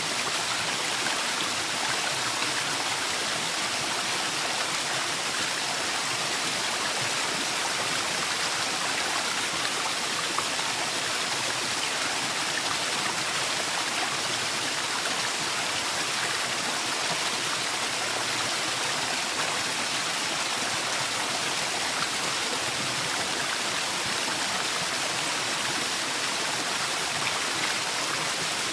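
Waterfall splashing, a steady rush of falling water with no breaks or changes.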